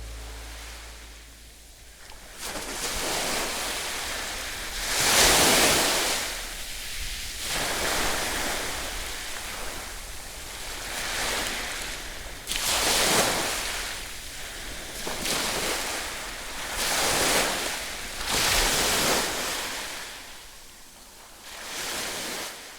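Ocean surf breaking on a beach: a rush of water that rises and falls again about every two seconds.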